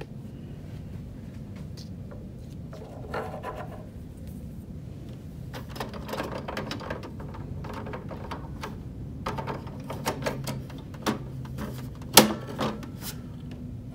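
Plastic clicks and rattles of inkjet cartridges being handled in the carriage of an HP DeskJet printer, ending in one sharp snap near the end as a cartridge is pressed down and released from its slot. A low steady hum runs underneath.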